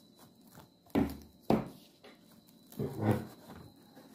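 Plastic cling film being stretched over a glass bowl and pressed into place: two sharp knocks about a second in, half a second apart, then a longer rustling bump around three seconds in.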